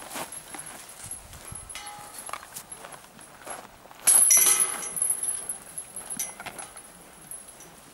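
A disc golf putter (Discmania D-line P1) strikes the chains of a metal disc golf basket about four seconds in. The chains jangle and ring and fade out over about a second.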